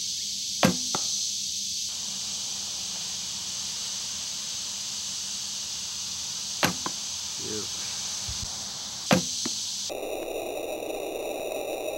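Three shots from a traditional recurve bow: each a sharp snap of the string on release, followed a fraction of a second later by a fainter knock as the arrow strikes the target. Under them runs a steady high hiss.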